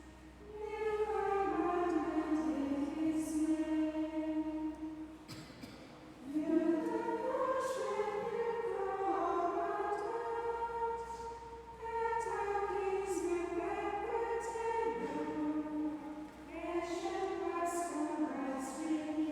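Choir of nuns singing unaccompanied chant in unison, one melodic line in long phrases with short breaths between them.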